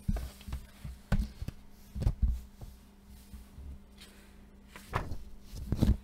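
Pages of a paperback coloring book being turned and pressed flat by hand: paper rustling with a few soft thumps as pages land and are smoothed down against the desk.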